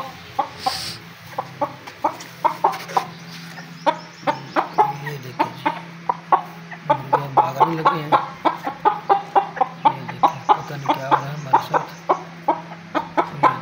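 Chickens clucking rapidly and without pause, short sharp clucks several a second, the agitated clucking of frightened birds. A steady low hum runs underneath.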